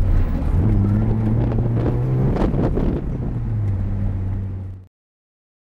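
Mitsubishi Lancer Evolution VIII RS's turbocharged four-cylinder engine heard from inside the cabin, running at a steady pitch with wind noise. The pitch drops slightly about three and a half seconds in, and the sound cuts off abruptly near the end.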